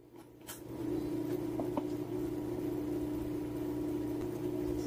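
A steady low hum sets in just under a second in and holds, with a light click about half a second in and another near two seconds.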